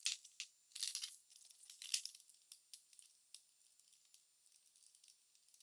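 Faint clicking and rasping of a five-digit combination padlock's number wheels being rolled by hand to set the code, a string of small clicks over the first three seconds, then near silence.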